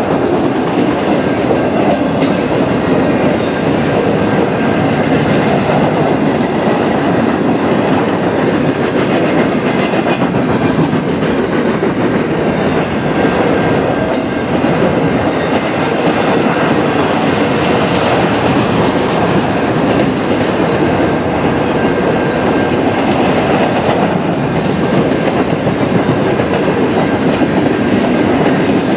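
Freight cars of a manifest train rolling past at close range: a loud, steady rumble and rattle of steel wheels on the rails as autoracks, boxcars and tank cars go by.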